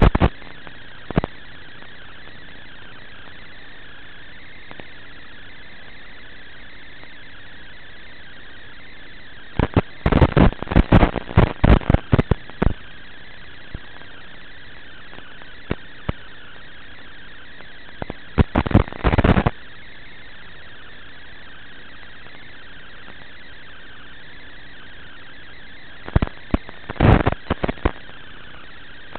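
Steady hiss from an analog FPV video link's audio channel, broken by bursts of loud crackling static about a third of the way in, around two-thirds of the way in, and again near the end. Static like this comes with reception breakup on the analog video signal.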